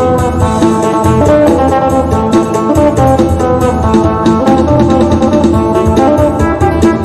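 Isan phin (three-string lute) played in lam sing style: quick plucked melody lines over a steady bass-heavy beat.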